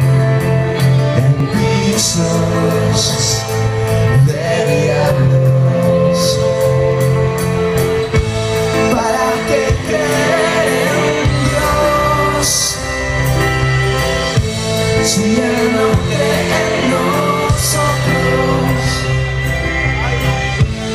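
Live band playing with a singer, recorded through a phone's microphone from inside the audience.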